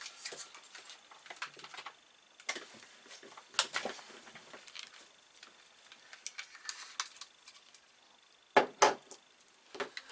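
Plastic power adapter and cables being handled on a desk: scattered light clicks and rattles, with two louder knocks close together near the end.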